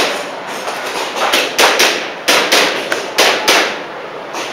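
Airsoft pistol firing a string of sharp shots, about seven in quick pairs and threes over roughly two seconds, then a pause near the end.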